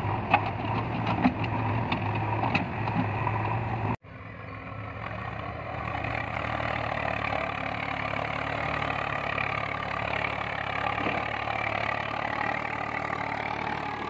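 Tractor and backhoe diesel engines idling with a steady low hum and a few sharp clicks. About four seconds in, the sound cuts abruptly to a Swaraj tractor's diesel engine running steadily as it pulls a trolley along a dirt track.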